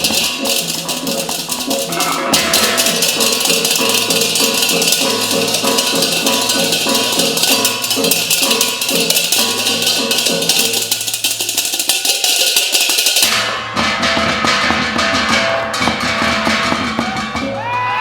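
Percussion-led ensemble music in the style of Balinese gamelan: struck metal keys and gongs over a steady drum pattern, with a dense shimmer of small cymbals. About 13 seconds in the cymbal shimmer mostly falls away and the struck pitched notes carry on.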